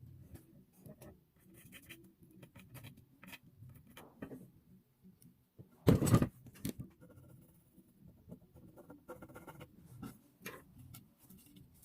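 Light scraping and clicking of objects being handled, with one loud knock about six seconds in and a smaller knock just after.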